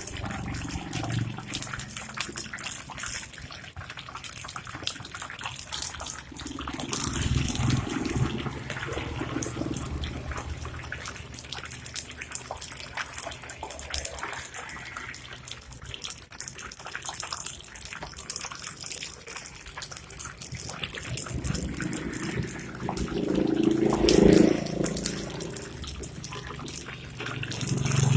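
Hot oil sizzling and crackling steadily as taro fritters stuffed with minced pork deep-fry over a low flame. A louder low rumble swells briefly about seven seconds in and again around twenty-four seconds.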